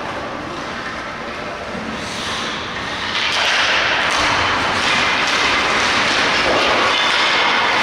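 Ice hockey game noise in a rink: a steady hiss of skates on the ice with stick and puck knocks, growing louder about three seconds in.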